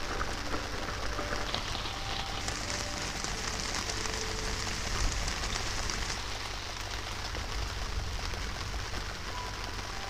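Steady rain falling onto standing water and wet ground, drops splashing into the water.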